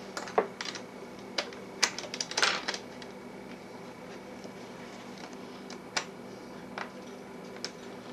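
Scattered sharp plastic clicks and taps of electronics-kit circuit pieces being handled and snapped onto the kit's base board, with a quick cluster of clicks about two to three seconds in and a few single clicks later.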